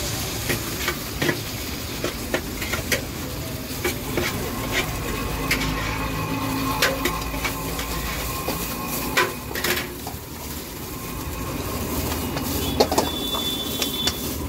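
Steel ladle clanking and scraping against a wok in irregular strokes as chilli chicken is stir-fried, over the steady noise of a gas burner and frying.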